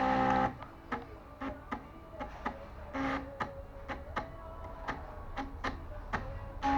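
Stepper motors of a homemade mini CNC driving its axes while it draws a PCB: short pitched whines that change note every second or so, mixed with frequent sharp clicks, loudest just at the start.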